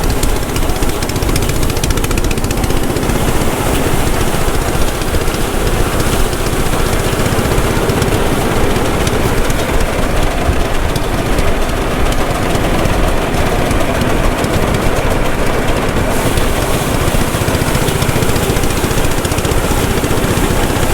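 Engine-driven rice thresher running steadily, a loud continuous mechanical clatter with a fast even pulse as rice stalks are threshed.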